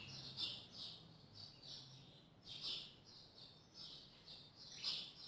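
A bird chirping in the background: a string of short, high chirps at about two a second, irregularly spaced.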